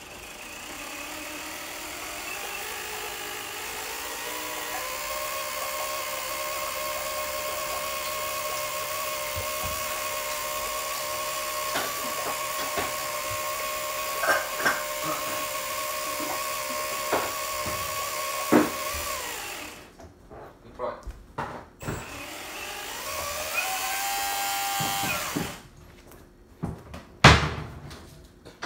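A 4050 brushless electric motor driving a homemade pump, its whine rising as it spins up over the first few seconds, then running steadily before it winds down about twenty seconds in. It spins up again briefly a few seconds later and stops, followed by a few sharp knocks near the end.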